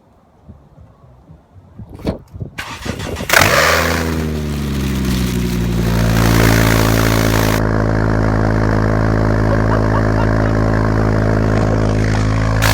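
Car engine cranking and catching about three seconds in, revs flaring briefly then falling back to a steady idle.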